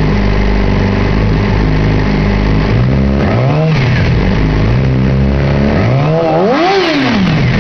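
2007 Yamaha YZF-R6's 600 cc inline-four, breathing through an aftermarket GYTR exhaust, idling steadily and then revved with a few throttle blips from about three seconds in. The last and highest rev comes near the end.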